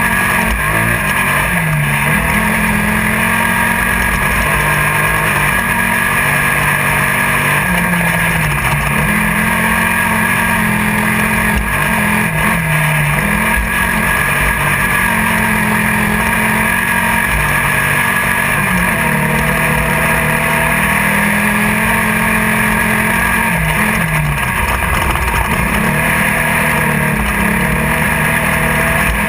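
Class 1600 off-road race buggy's air-cooled VW 1600 engine heard from inside the car, running hard at high revs with a handful of brief dips and recoveries in pitch. A steady, dense din of noise runs under it the whole time.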